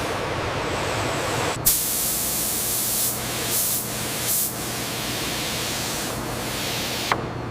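A rushing noise breaks off abruptly about a second and a half in, giving way to a loud, steady spraying hiss with three brief louder spurts in the middle.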